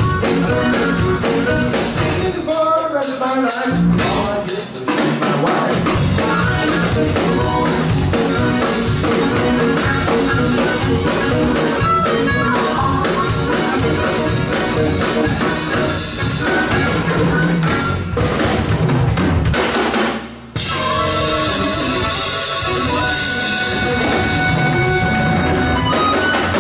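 Live blues band playing an instrumental stretch: a steady drum-kit beat with electric guitars and bass. The band breaks off briefly about twenty seconds in, then comes back in under amplified harmonica playing long held notes.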